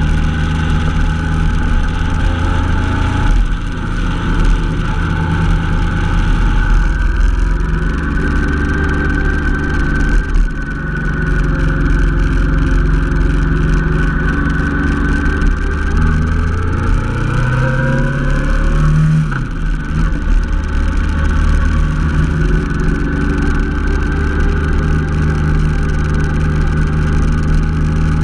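Honda NT700V Deauville's V-twin engine running steadily under way. About two-thirds through, its pitch rises as it accelerates, then drops back suddenly.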